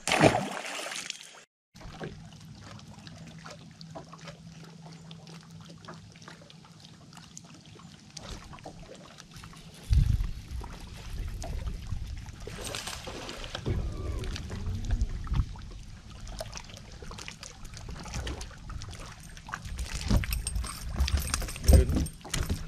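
Water splashing and lapping around a bass boat as a hooked bass is fought and landed, over a steady low hum, with heavier low rumbles and scattered clicks from about ten seconds in.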